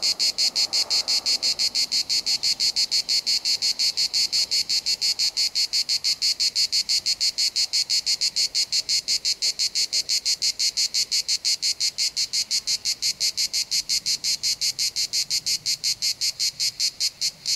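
Cicadas singing in a fast, even pulse of about five chirps a second, cutting off suddenly near the end.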